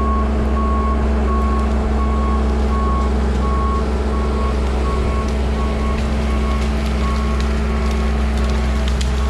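Skid steer engine running steadily under a reversing alarm beeping about twice a second: the machine is backing up.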